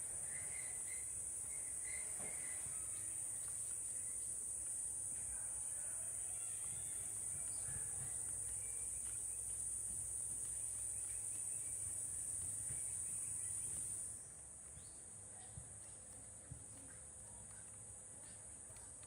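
Steady high-pitched insect chorus that drops abruptly to a much fainter level about fourteen seconds in. There are a few faint short chirps near the start.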